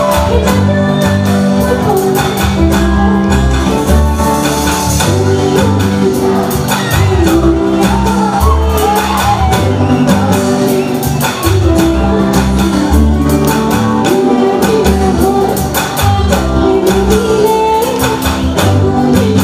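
A woman singing an Assamese Bihu song live with a band, amplified through a stage sound system: electric bass, dhol and drums under a bending sung melody.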